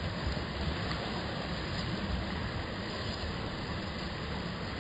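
Steady rushing of a river's flowing water, with a low rumble under it.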